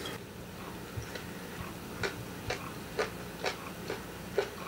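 Metal chopsticks clicking and tapping against plates and bowls at a meal: a run of light, sharp clicks, about two a second and a little uneven, over a faint steady room hum.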